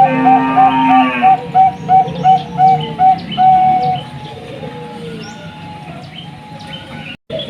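Zebra dove (Bangkok perkutut) cooing: a loud, fast run of short notes, about four a second, ending in a longer held note about three seconds in. After that only fainter chirps of small birds are left, and the sound cuts out for a moment near the end.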